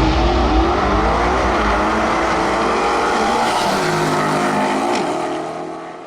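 Car engine revving up and down, the sound fading out near the end.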